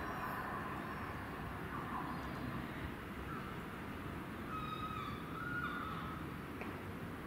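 Class 171 diesel multiple unit approaching from a distance, a steady low rumble of engine and rail noise. About halfway through, a faint high call steps up in pitch and falls away.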